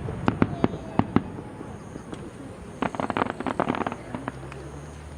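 Fireworks going off: several sharp separate bangs in the first second, then a dense burst of crackling about three seconds in that dies away.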